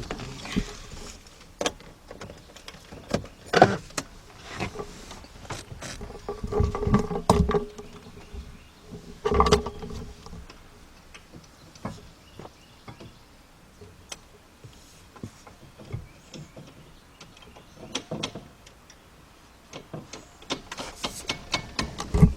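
Irregular sharp metal knocks and taps from a long socket extension striking the starter motor body under a 2004 Mercedes-Benz C320, a tap test to free a starter that won't crank. The knocks come in loud clusters, go quiet for several seconds, then pick up as quick taps, about three or four a second, near the end.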